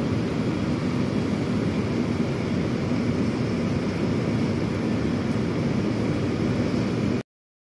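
Heavy rain falling over a city, a steady, even rushing noise that cuts off suddenly near the end.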